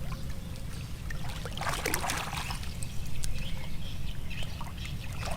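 Water splashing and trickling, with a louder splash about two seconds in, over a steady low rumble.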